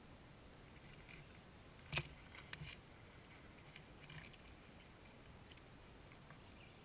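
Near silence with a faint hiss, broken by a sharp click about two seconds in and a few quieter crunches after it: motocross boots stepping on gravel.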